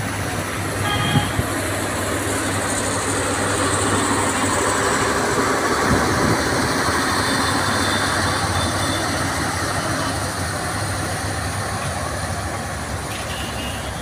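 Passenger train coaches rolling past, a steady rumble of wheels on rails, with a couple of sharp clanks about a second in. It grows louder toward the middle and eases slightly near the end.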